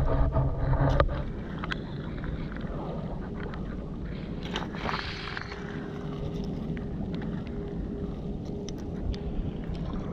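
Steady low engine drone of a passing boat, with a held hum coming in about halfway. Scattered small clicks and a brief rustle about five seconds in.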